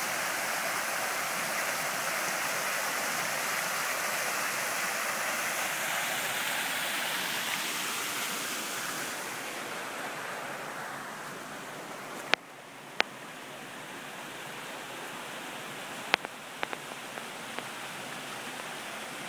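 Water pouring over the ledges of a stacked-stone garden waterfall into a pool, a steady rushing splash that fades out about halfway through. Afterwards it is quieter, with a few sharp clicks.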